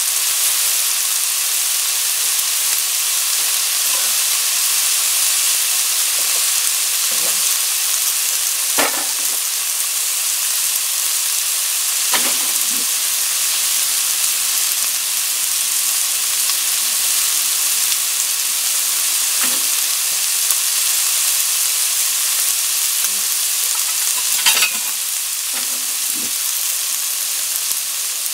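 Pork and vegetables sizzling steadily in a stone-coated wok as they stir-fry, with a few brief knocks, the loudest about three quarters of the way through.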